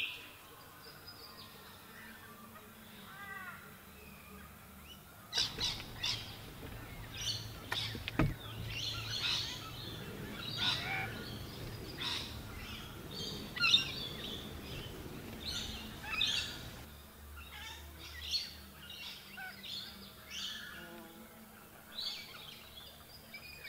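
Several birds calling and chirping in quick, overlapping bursts, busiest from about five seconds in, over a low background noise, with one sharp knock about eight seconds in.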